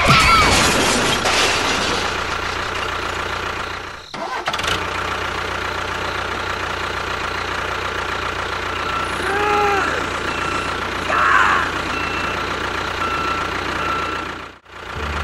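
Tractor engine running steadily, loudest in the first second or so, breaking off briefly about four seconds in and again near the end. A few short high chirps sound around the middle.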